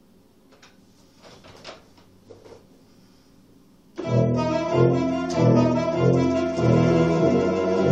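A few faint clicks, then about four seconds in a Yamaha Electone HS-6 electronic organ starts playing loudly in theatre-organ style: full sustained chords over a bass line of repeated low notes.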